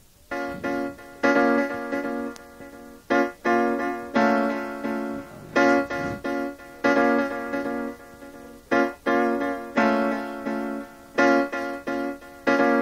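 Instrumental hip hop music: keyboard chords, sounding like a sampled piano or electric piano, struck one after another and left to die away, without drums.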